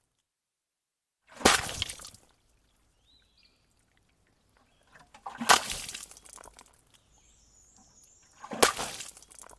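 Three separate water splashes, each sudden and dying away within about a second.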